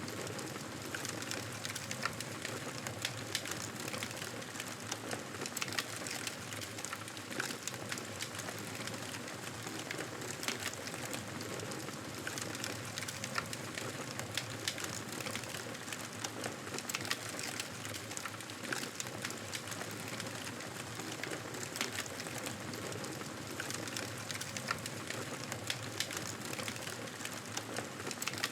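Wood fire crackling in a fireplace: a steady hiss dotted with many small, sharp pops.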